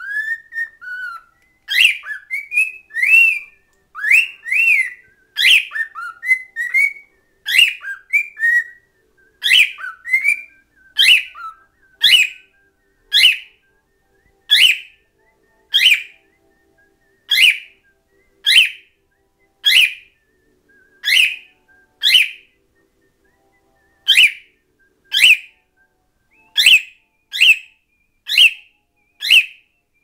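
Pet cockatiel whistling a quick run of varied, gliding notes, then calling over and over in short, sharp, identical notes about once a second.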